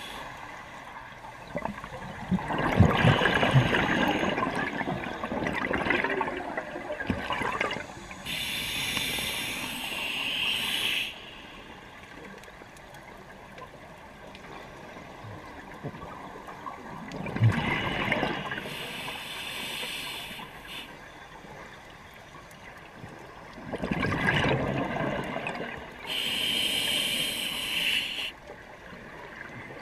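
Scuba diver breathing through a regulator underwater: three breaths, each a long bubbling rush of exhaled air followed by a shorter, high-pitched hiss as air is drawn through the regulator.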